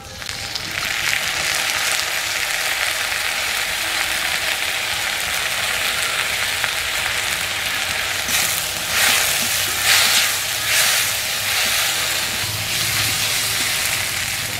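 Ginger-garlic paste sizzling as it hits hot mustard oil and frying onions in an aluminium wok; the sizzle swells in just after the start and holds steady. From about eight seconds in, a metal spatula stirs the paste through the onions, and the sizzle surges in several bursts.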